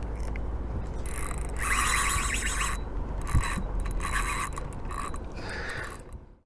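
Spinning reel being wound in several spurts, its gears whirring, over a steady low wind rumble on the microphone. The sound fades out near the end.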